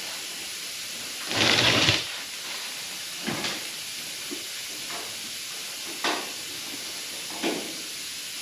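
A sheet-metal patch panel being handled and test-fitted in a truck fender. There is a short scraping rush about a second and a half in, then several light knocks and clicks, over a steady hiss.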